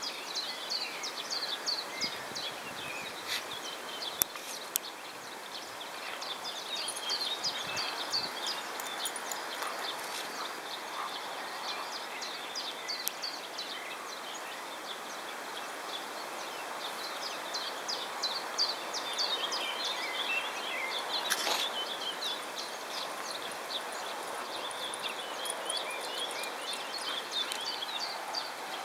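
Many small songbirds chirping and singing continuously over a steady background hiss, with a couple of sharp clicks a few seconds in.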